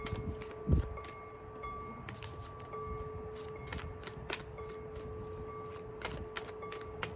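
Oracle cards being shuffled by hand: irregular sharp clicks and snaps of the cards, with a dull thump about a second in. A steady ringing tone sounds underneath.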